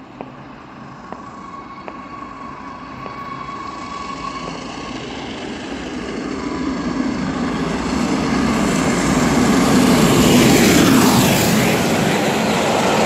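Peppercorn A1 three-cylinder Pacific steam locomotive Tornado approaching at speed and passing with its train. The exhaust and running gear grow steadily louder, peak about ten seconds in as it rushes by, then drop in pitch as it passes.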